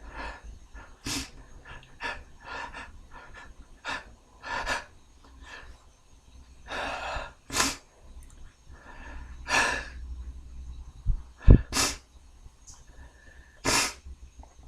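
A man sneezing again and again, with sharp in-breaths and sniffs between the sneezes, set off by a tickle in the nose from beer. A low thump comes just before one sneeze near the end.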